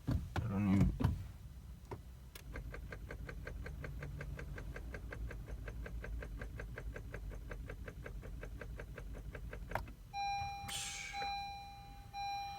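2017 Honda Civic failing to start: rapid, even clicking for about seven seconds while the engine does not crank. Then a warning chime beeps repeatedly at one pitch.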